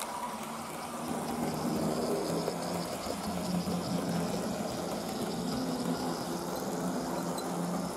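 Piko BR 82 model steam locomotive running steadily along the track, its small electric motor humming over the rolling of its wheels on the rails.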